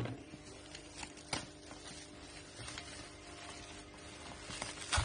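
A parcel being handled: scattered small clicks and crinkles of its packaging, with a louder rustle near the end.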